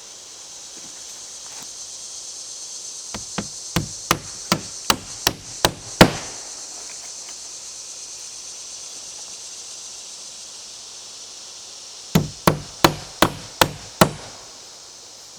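Claw hammer driving nails through a wooden batten into board siding. There are two runs of strikes, about two or three a second: about eight in the first run, the last blow loudest, and about six more near the end. Steady insect chirring runs underneath.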